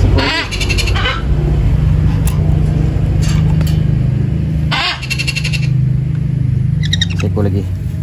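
Parrot chicks giving short, raspy begging calls in brief bouts while being hand-fed formula by syringe, over a steady low hum.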